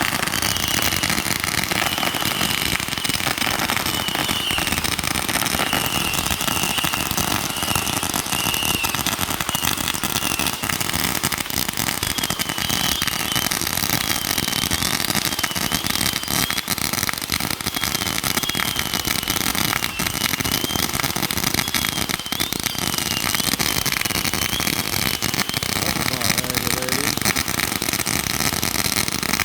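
Firework fountain spraying sparks: a steady crackling hiss that holds an even level throughout, with a faint wavering whistle in the middle part.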